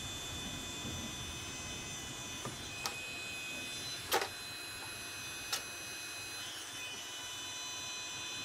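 Milwaukee M18 cordless heat gun running, its blower fan giving a steady whine with several high tones while it shrinks heat-shrink tubing. A few light clicks, the sharpest about four seconds in.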